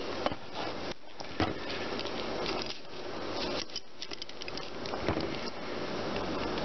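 Handling clatter of tools and copper cable lugs on a workbench: scattered light clicks and knocks over a steady rustling noise as the crimping tool is brought into place.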